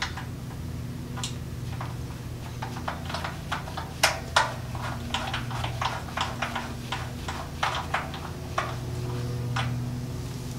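Irregular metallic clicks and clinks of hand tools and bolts as a small engine is bolted down to its mounting plate, with two sharper knocks about four seconds in, over a steady low hum.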